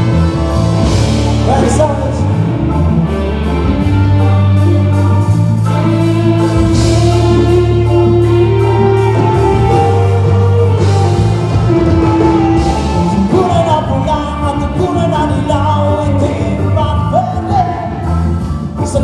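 A band playing a song with a singer over the PA, with a steady bass line and drums under the sung melody.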